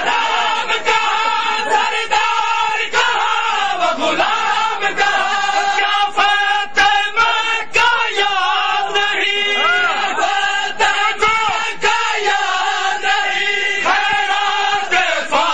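Crowd of men chanting a Shia noha together in long, held lines, with sharp hand slaps of matam (chest-beating) recurring through it.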